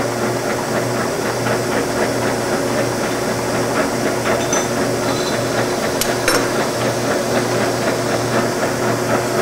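Machinery running steadily: an even hiss over a low hum, with a fast, fine ticking throughout. Two sharp clicks about six seconds in.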